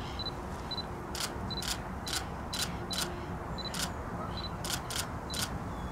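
A digital camera taking a run of trophy photos: about nine sharp shutter clicks, several of them preceded by a short high autofocus-confirmation beep.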